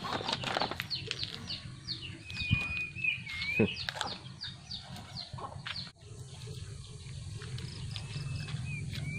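A quick run of short, high falling chirps from a small animal, about three or four a second, with a longer wavering whistle-like call among them. About six seconds in the sound cuts to a steady low rumble with a few faint high calls.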